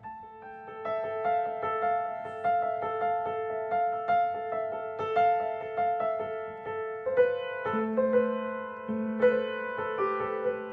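Background piano music: a calm melody of single notes over sustained lower notes, with a lower bass note coming in about three-quarters of the way through.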